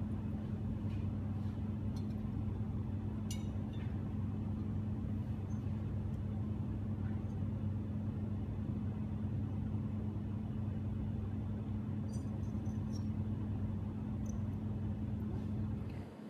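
Steady low hum and rumble of a glassblowing workshop, with a few faint clicks; the hum drops off abruptly near the end.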